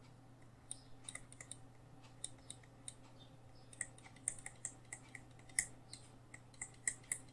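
Stylus tapping and clicking on a tablet screen during handwriting: faint, irregular light clicks, sparse at first and thicker from about halfway. A faint steady low hum lies underneath.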